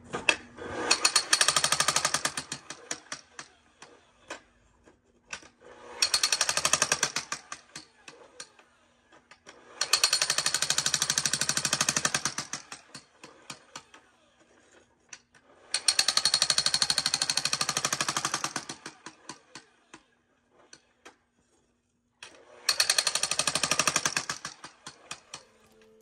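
Electric jackhammer breaking up frozen ground, running in five bursts of rapid hammering, each two to three seconds long, with short pauses between them.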